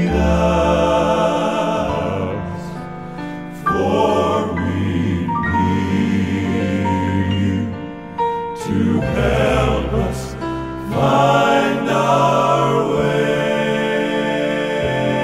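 Southern gospel male quartet (tenor, lead, baritone and bass) singing held chords in close harmony with accompaniment. The chords change every few seconds.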